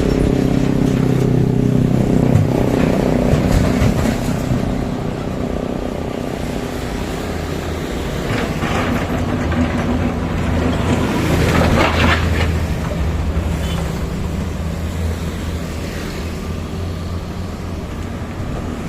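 Heavy machinery's engine running steadily, its pitch dropping a few seconds in, with a short hissing burst about two-thirds of the way through.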